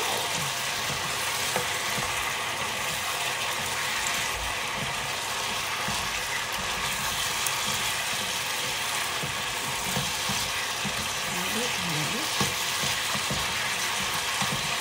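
Chicken feet in sauce sizzling steadily in a frying pan while being stirred and turned with a spatula, with small scrapes and clicks of the spatula against the pan.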